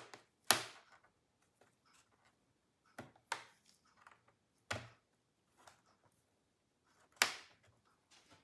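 Plastic clips of an MSI Vector 16 HX AI laptop's chassis snapping free as a plastic pry pick works along the side seam: about half a dozen sharp clicks at irregular intervals, the loudest about half a second in and about seven seconds in.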